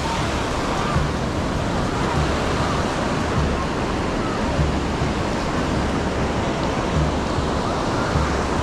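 Ocean surf breaking and washing up the sand in a steady, even wash. Distant beachgoers' voices are faintly mixed in.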